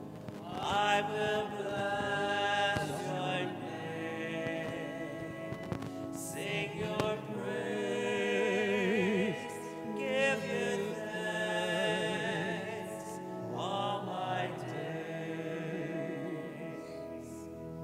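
Church hymn sung during the preparation of the gifts at Mass: a singing voice with marked vibrato over sustained instrumental accompaniment, in phrases of a few seconds.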